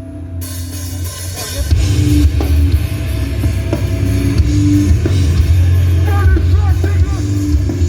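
Metallic hardcore band playing live, heard through a phone's microphone in the crowd. Distorted guitars and drums come in about half a second in over a low bass drone, and the band plays at full volume from about two seconds in.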